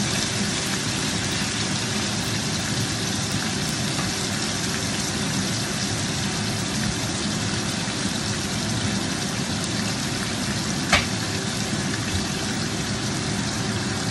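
Pork rib pieces sizzling steadily in oil in a skillet as they brown. A single sharp tick cuts through about eleven seconds in.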